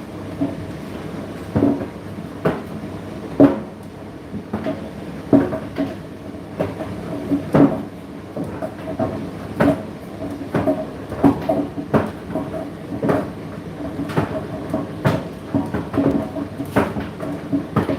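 Indesit IDC8T3 condenser tumble dryer running: a steady hum from the turning drum, with irregular knocks and thuds, one or two a second, as the load tumbles inside.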